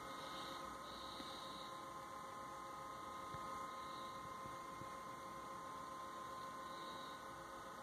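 Faint steady electrical hum made of a few held tones, with nothing else happening.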